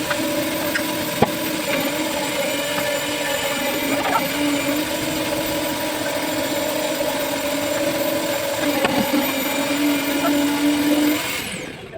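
An engine running steadily with an even hum, which stops abruptly near the end.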